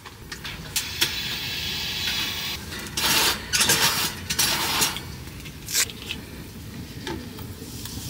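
Portable tent heater being relit: a few sharp clicks, loud noisy bursts around the middle, and a steady hiss of the heater running.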